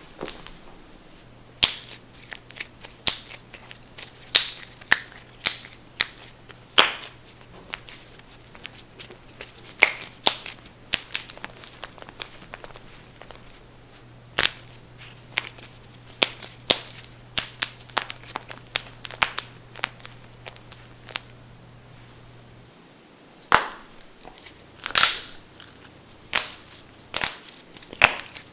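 Knuckles cracking: many sharp pops at irregular intervals, some single and some in quick runs of two or three, with a couple of short lulls.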